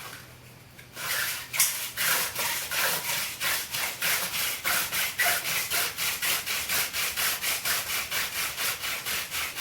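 Hand drill friction fire: a mullein spindle spun back and forth between bare palms, grinding in the socket of a wooden fireboard. It starts about a second in and runs as a rhythmic rubbing, about four strokes a second, burning in a new hole.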